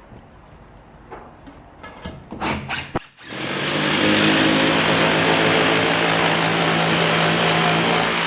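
A few knocks and clatters, then an electric power drill starts about three seconds in, runs at a steady speed for about five seconds and stops sharply.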